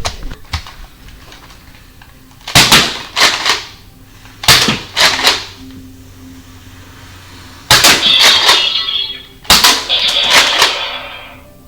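Nerf Roughcut 2x4 pump-action dart blaster fired shot by shot: the priming slide is racked and the trigger pulled, giving sharp plastic clacks and air pops in quick groups of two or three, five times over.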